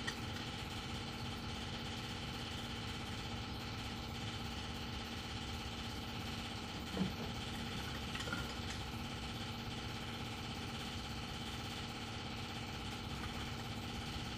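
1984 AMC Eagle's engine idling steadily on a freshly rebuilt Motorcraft 2150 two-barrel carburetor while the idle is being set. Two faint clicks come about seven and eight seconds in.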